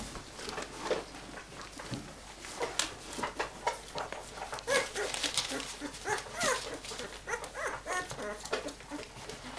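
A litter of flat-coated retriever puppies whimpering and squeaking: many short, high calls that bend up and down and come thicker in the second half, with light scrabbling and knocks as they clamber over each other.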